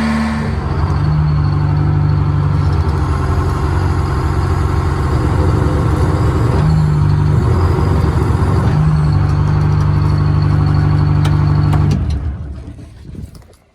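Diesel engine of a 1971 Insley excavator running, its note stepping up and down a few times, then shut off about twelve seconds in and winding down to a stop.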